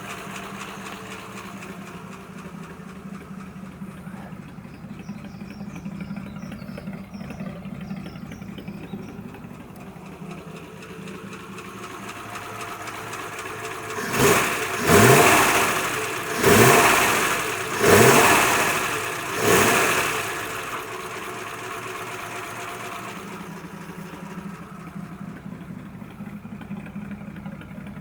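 Ford flathead V8 idling steadily, run cold without choke on a carburettor that had been flooding. About halfway through it is blipped four times in quick succession, each a short rising rev that drops back, then it settles back to idle.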